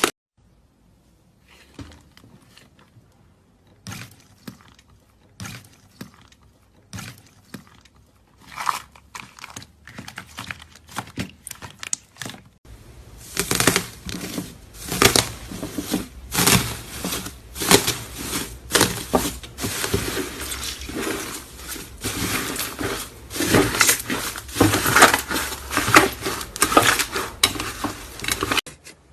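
Slime being squished and pressed by hand, giving sticky pops and clicks. Sparse at first, then from a little under halfway a dense, louder run of crackling and popping.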